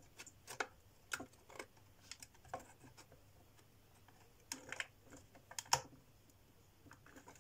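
Light, scattered clicks and taps of thin plywood model-kit parts being slid and pressed together as a wooden clock mechanism is assembled, with a small cluster of knocks a little after the middle.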